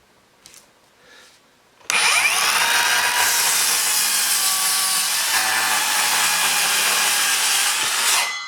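Ridgid R48607B 18-volt cordless sliding miter saw starting up about two seconds in and cutting through a 2x8 in one pass. The motor winds up quickly and runs loud and steady through the cut, then stops quickly near the end as the blade brake stops the blade.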